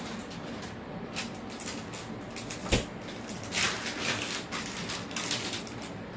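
Kitchen handling noises: scattered clicks, scuffs and rustles of items being moved about, with one sharp knock a little before the middle.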